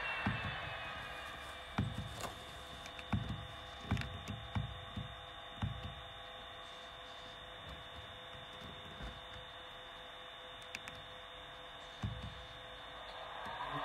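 Sound decoder of a Piko H0 class 240 'Laminátka' electric locomotive model playing a steady electrical hum made of several fixed tones, with a few short low thumps in the first half. Near the end a whine begins to rise.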